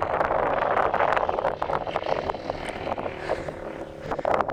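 Strong wind buffeting the microphone in uneven, crackling gusts, easing a little near the end.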